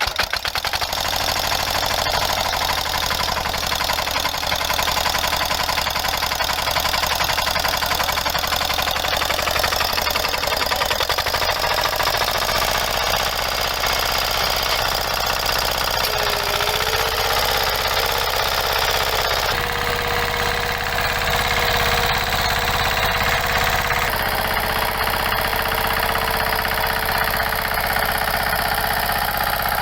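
An engine running steadily with a fast, even chugging beat; its tone shifts slightly about two-thirds of the way through.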